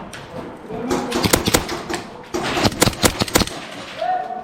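Airsoft pistols firing two rapid strings of sharp cracks, the first about a second in and the second about a second and a half later.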